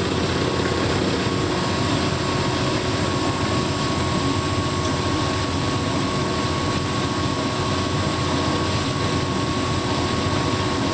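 Hotpoint NTM1182XBUK heat pump tumble dryer running on its bed and bath cycle: a steady whir with a thin, steady whine over it.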